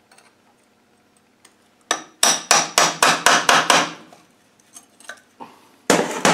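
Hammer tapping flat steel splitting blades into the joint of an R380 gearbox casing to work it off a tight locating dowel. About two seconds in comes a quick run of about nine sharp metallic taps, roughly four a second, and another run starts near the end.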